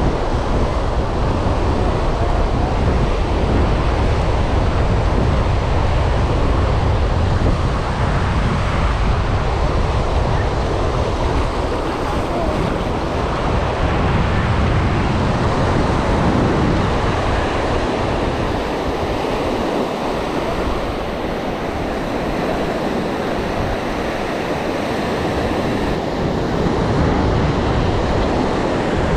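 Steady rushing wash of ocean surf mixed with wind. Wind buffets the microphone as a low rumble that eases off a little past the middle.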